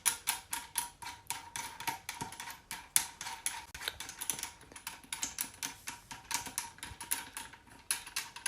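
Rapid, irregular clicking and rattling of hard plastic parts being handled and fitted together, several clicks a second.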